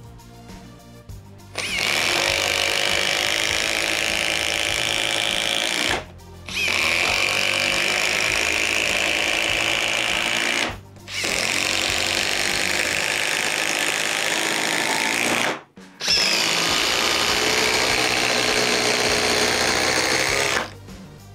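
Cordless impact driver hammering in four runs of about four seconds each, with short pauses between, over quiet background music.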